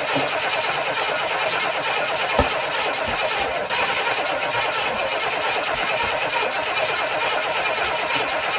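Chevrolet Vortec engine turning over steadily with its distributor just reinstalled, with one sharp knock about two and a half seconds in.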